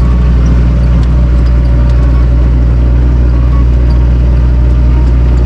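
A vehicle driving along, its engine and tyre noise making a steady low drone.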